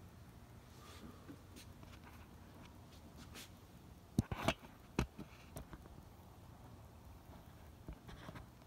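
Quiet background hiss with a few short, sharp clicks and rustles close to the microphone about four to five seconds in.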